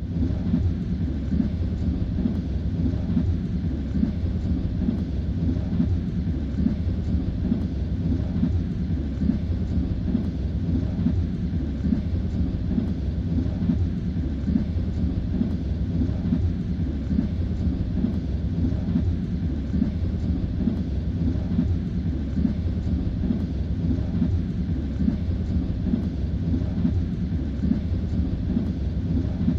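Train running at speed, heard from inside the carriage: a steady low rumble with the rhythmic clatter of the wheels on the rails.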